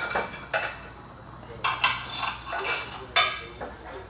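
Irregular metal clinks and clanks of bolts and hand tools against a steel aftermarket rear bumper and its frame mounts as it is lined up and bolted on, each strike with a short ring.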